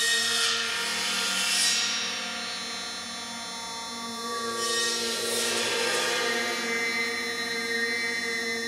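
Tam-tam bowed at its rim, giving a dense sustained metallic ringing. Two swells of scratchy bow noise come about a second in and again around five seconds, over steady held tones.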